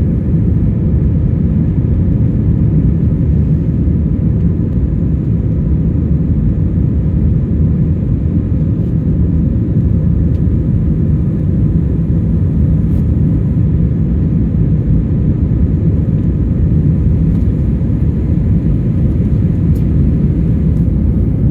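Airliner during its takeoff climb: the jet engines and rushing air make a loud, steady low rumble, with a faint steady whine above it.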